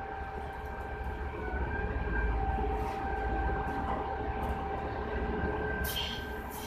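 A machine's motor runs steadily with a constant hum and whine. Near the end a short burst of air hisses.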